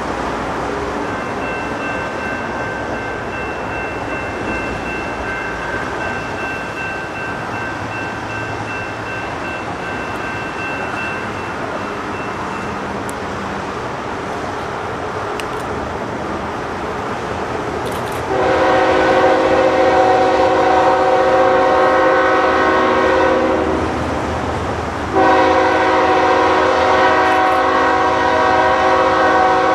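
Nathan K5HL five-chime air horn on a CN GE ES44AC locomotive sounding two long blasts for a grade crossing. The first comes about 18 seconds in and lasts about five seconds; the second follows after a short gap. Under both is the steady rumble of the approaching train.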